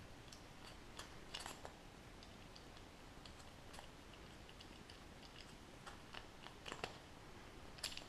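A small cutter blade is worked into a styrofoam ball, giving faint, scattered crunching clicks. There are a few louder crackles about a second and a half in, and again near the end.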